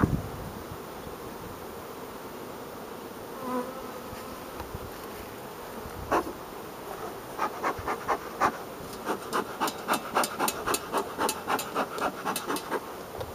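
Carniolan honeybees buzzing around the hives. From about seven seconds in comes a quick run of short puffs, about three a second, from a bee smoker's bellows being pumped.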